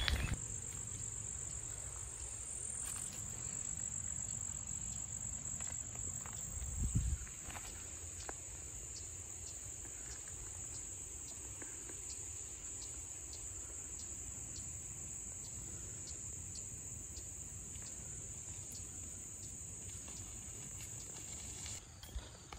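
Steady, high-pitched insect chorus from the woodland undergrowth, with faint evenly spaced ticks in the middle stretch. A low rumble runs underneath, with a brief low thump about seven seconds in.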